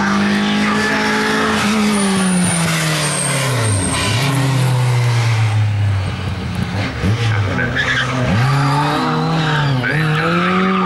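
Mk2 Ford Escort rally car's engine revving hard, the pitch dropping sharply about four seconds in and dipping twice more as the driver lifts and changes gear, then climbing again, with tyres skidding and squealing as the car slides through a tight chicane.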